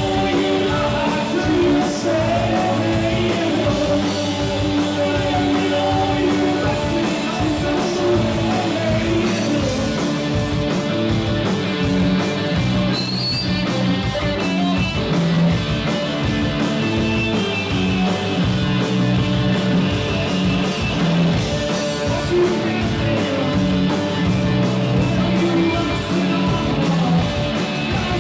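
Live rock band playing: electric guitars, bass and drums with a steady beat, and a singer's voice over them.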